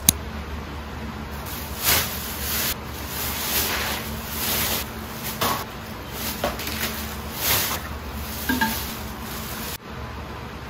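A plastic carrier bag and a paper takeaway bag rustling in irregular bursts as they are handled and food packaging is pulled out.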